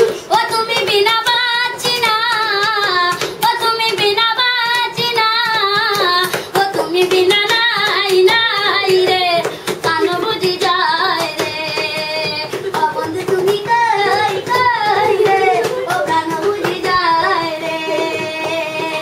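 A boy singing a Bengali song in a high voice, drawing out long wavering notes without instruments, with a steady run of sharp taps keeping time.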